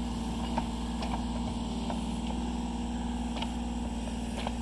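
Excavator's diesel engine running steadily at a constant speed, with a few faint clicks.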